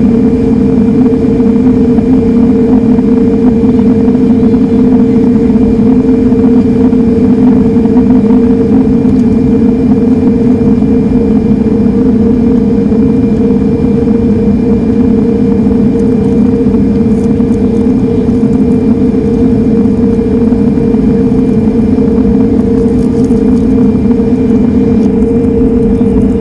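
Sukhoi Superjet 100's twin PowerJet SaM146 turbofans heard from inside the cabin: a loud, steady drone with a steady hum.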